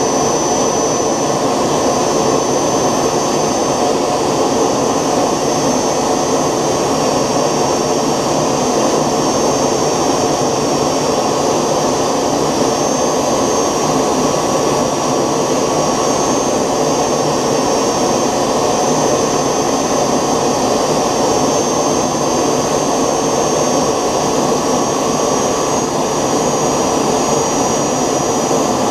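3D-printed model gas turbine (jet engine) running steadily, a rushing hiss with a thin high turbine whine. The whine creeps up in pitch about halfway and again near the end, as the engine seems to speed up by itself.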